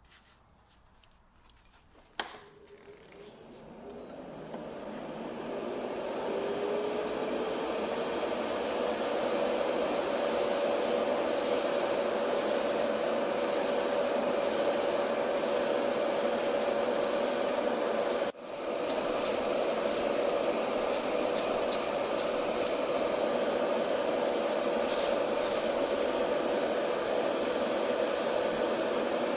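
Spray booth exhaust fan switched on with a click, spinning up over a few seconds with a hum that rises in pitch, then running steadily as a loud whoosh with a steady hum. Short bursts of higher hiss come and go over it in the middle.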